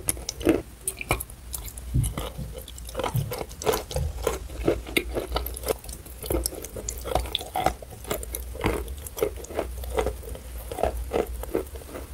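A person biting and chewing wet chalk coated in chalk paste, heard as a dense, irregular run of short clicks.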